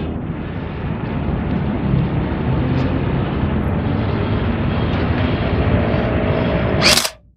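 A steady engine-like rumble with a hiss over it, ending in a brief loud burst about seven seconds in and then cutting off abruptly.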